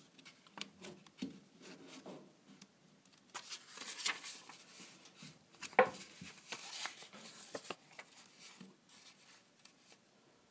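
A paper instruction booklet being handled: a hand rubs and presses the pages, and one page is turned with a sliding rustle, followed by a sharp tap about six seconds in.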